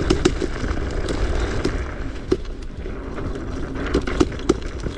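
Off-road electric scooter rattling and clattering over rough, rocky, sandy ground, with irregular knocks over a steady low rumble.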